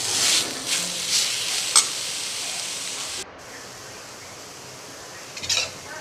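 Steel spoon stirring mashed chana dal into grated coconut in a hot frying pan: scraping with a light sizzle and a clink a little under two seconds in. The sound drops abruptly a little past halfway to a quieter steady hiss, then a few more spoon scrapes come near the end.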